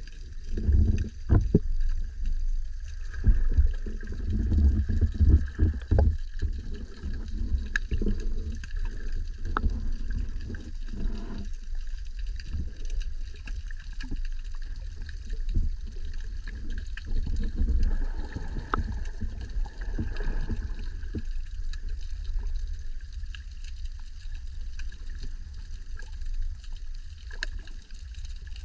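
Muffled underwater sound picked up by a camera submerged in the sea: a low rumble of moving water with irregular knocks and sloshes, more of them in the first half, over a faint steady high whine.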